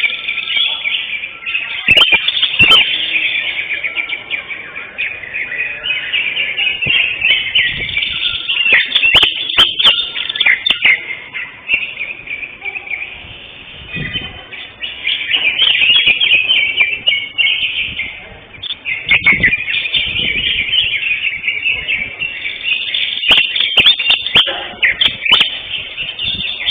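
Greater green leafbird (cucak hijau) singing a long, rapid, varied song with only brief pauses. Sharp clicks are mixed in now and then.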